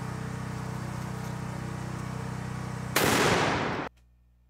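A steady low hum, then about three seconds in a single elephant-rifle shot: one sharp, loud bang whose tail is cut off suddenly less than a second later.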